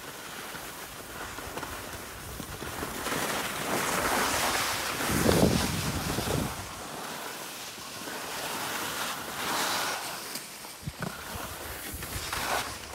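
Skis sliding and scraping over packed, chopped-up snow: a rushing hiss that swells and fades with the turns. Wind rumbles on the microphone about five seconds in.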